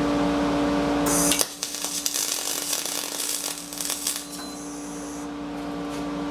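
Aluminum MIG weld laid with a spool gun: about a second in, the arc strikes and hisses and crackles steadily for roughly four seconds, then stops. Before the arc starts there is a steady hum.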